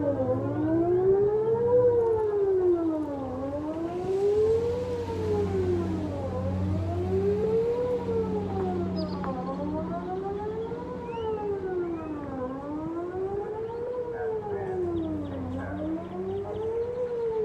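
Whelen WPS 2909 electronic outdoor warning siren sounding a wail tone heard from about 2,000 ft away, its pitch rising and falling steadily about once every three seconds during a siren test.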